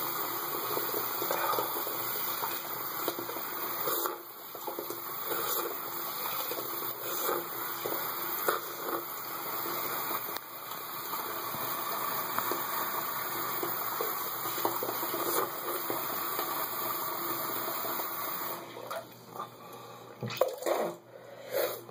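Tap water running steadily into a bathroom sink, stopping about three-quarters of the way through, followed by a few short sounds near the end.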